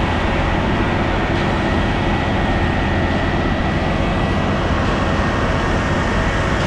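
Concrete mixer truck's diesel engine running steadily, with a thin, steady high whine over it.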